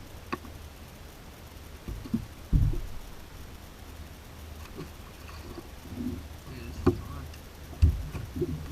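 A few scattered knocks and thumps, the heaviest about two and a half seconds in and near eight seconds, over a low steady rumble.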